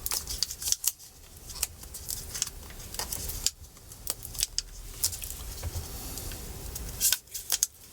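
Irregular small clicks and taps of hands and a tool working on the parts inside an opened MacBook Pro laptop.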